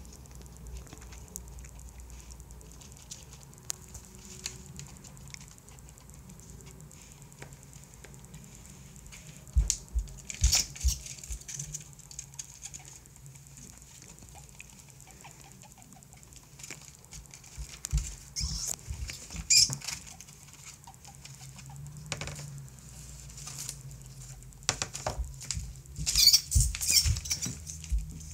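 A small live rat scrabbling and moving over newspaper in a plastic tub, its feet scratching and rustling the paper in short bouts separated by quieter stretches.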